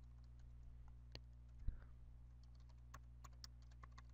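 Faint computer keyboard typing, scattered keystroke clicks that come thicker in the second half, over a steady low electrical hum. One low thump about a second and a half in is the loudest sound.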